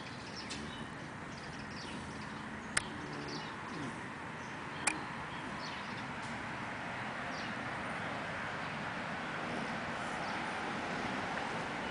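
Steady outdoor background noise that grows slightly louder, with faint scattered bird chirps and two sharp clicks about two seconds apart in the first half.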